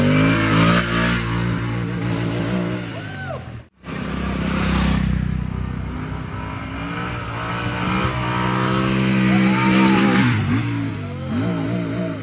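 Motorcycle engine revving, its pitch rising and falling again and again as the throttle is opened and closed. The sound cuts out briefly about four seconds in.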